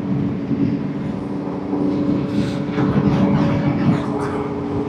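Suzuki GSX-R600 inline-four engine running at steady cruising revs, under a constant rush of wind and road noise.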